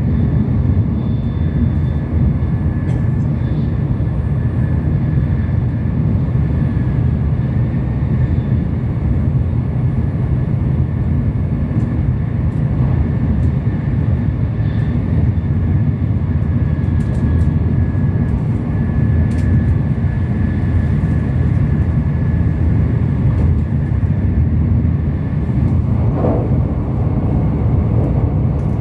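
Tokaido Shinkansen bullet train running, heard from inside the cabin: a steady, loud low rumble with a thin, even whine above it.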